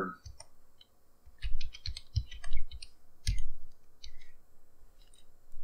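Typing on a computer keyboard: after about a second of quiet, an irregular run of short key clicks for about three seconds, then a few scattered clicks.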